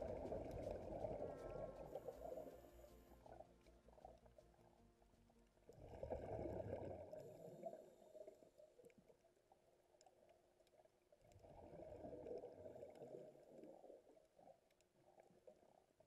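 Faint underwater sound of a scuba diver's exhaled air bubbling out of the regulator, in three slow rumbling bursts about five seconds apart, with near quiet between them.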